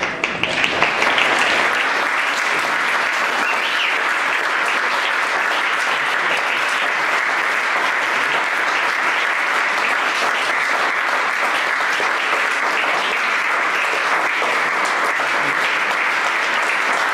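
Audience applauding, breaking out suddenly and building over the first second or two, then holding steady.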